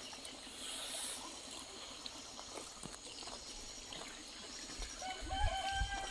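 A rooster crows once, one long call beginning about five seconds in, after several seconds of faint outdoor background hiss. Low rumbling from microphone handling runs under the crow.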